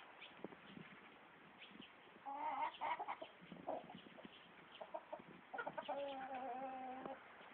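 Chickens calling: a few short calls about two and a half seconds in, then one long, slightly wavering call lasting about a second and a half near the end, over scattered light clicks.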